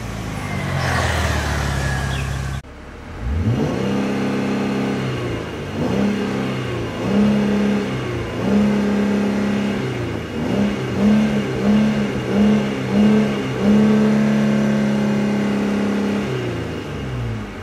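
Jeep Wrangler JK's 3.6-litre V6 through an aftermarket Magnaflow exhaust, revved with the throttle pedal. For the first couple of seconds it is heard at the tailpipe, then from inside the cabin, where it is blipped up and down over and over. Near the middle comes a run of five quick blips, then a long held rev that falls back to idle near the end.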